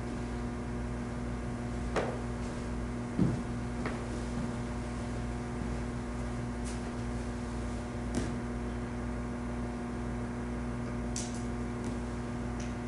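Steady electrical hum from a sound system, with a few faint knocks and clicks, the clearest about three seconds in.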